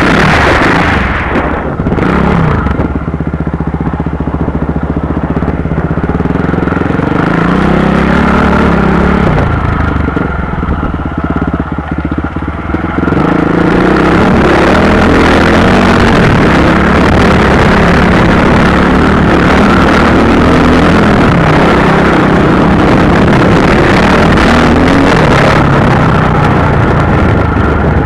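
Motorcycle engine running under way, its pitch rising and falling as the throttle opens and closes, with a rushing noise over it. It eases off briefly about two seconds in, and again for a few seconds about ten seconds in, before pulling steadily again.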